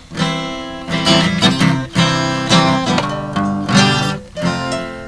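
Acoustic guitar strummed in chords, each strum ringing out before the next.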